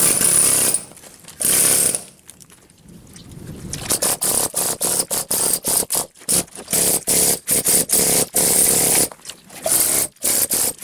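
Güde compressed-air chisel hammer hammering old mortar and plaster off a brick wall. It runs in short bursts: two brief runs near the start, a pause, then from about four seconds in, rapid stop-start bursts as the trigger is worked.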